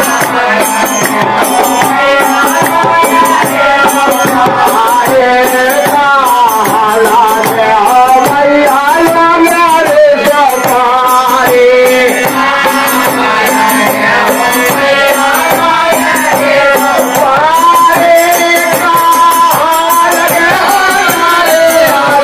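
Live devotional bhajan music: a melodic line, most likely voices singing, over rattling hand percussion that keeps a steady, fast beat throughout.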